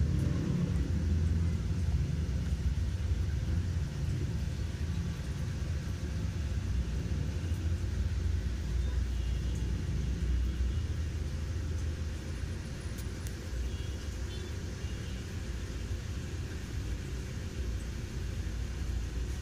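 Steady low background rumble, like a motor or road traffic.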